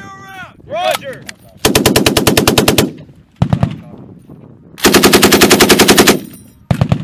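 M240B 7.62 mm belt-fed, gas-operated machine gun firing two rapid bursts of a little over a second each, about two and five seconds in, with shorter groups of a few shots between them and near the end.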